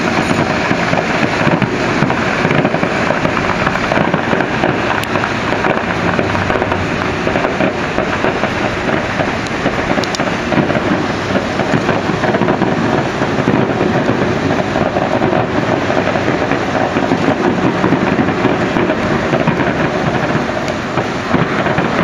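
Fireworks display going off in a steady rumble of overlapping shell bursts and crackle, with no single bang standing out.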